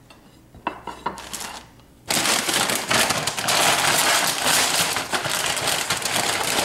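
A foil-lined potato chip bag crinkling loudly as it is handled, starting suddenly about two seconds in, after a few light knocks.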